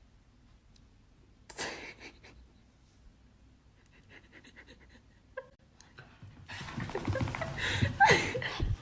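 Mostly quiet, with one short noise about one and a half seconds in. About two-thirds of the way through, a dog starts panting, louder towards the end.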